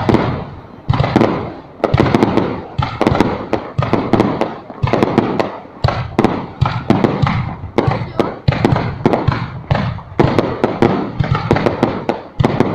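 Fireworks going off in quick succession: many sharp bangs a second, each followed by a short crackle, overlapping without a break.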